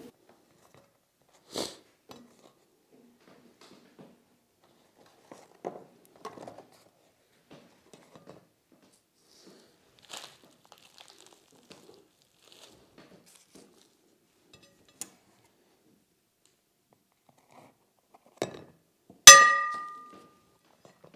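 Faint scattered handling knocks and rustles of pastry and a piping bag, then near the end a soft thud followed by a sharp clink of tableware that rings for about a second.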